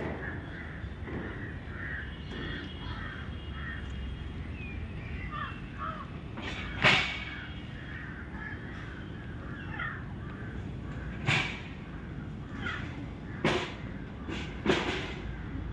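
Crows cawing, about five short harsh calls in the second half, the loudest about seven seconds in. Small birds chirp in the first few seconds over a steady low background noise.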